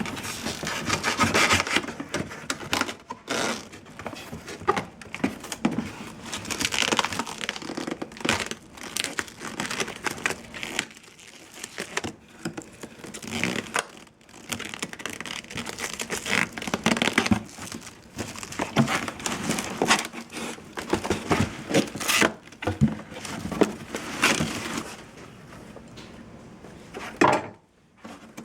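Packaging being handled during an unboxing: irregular crinkling and rustling of wrapping, with scattered knocks and scrapes.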